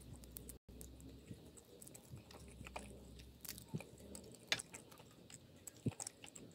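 Faint soft clicks and wet squishing as chopsticks move through the sauce and melted mozzarella in a cast iron skillet, with two sharper clicks, one about two-thirds of the way in and one near the end.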